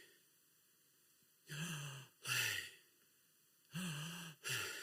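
A man breathing out the name "Yahweh" twice as a breathy, sigh-like two-part sound, as a demonstration of the name sounding like breath. The first comes about a second and a half in, the second near the end.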